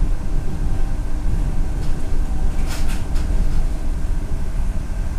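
Mitsubishi Crystal Mover rubber-tyred automated people mover running along its guideway, heard from inside the car. A steady low rumble and faint hum, with a short cluster of clicks or rattles about three seconds in.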